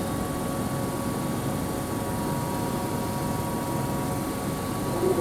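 Electric commuter train running along the platform, a steady rumble with a faint, even hum over it.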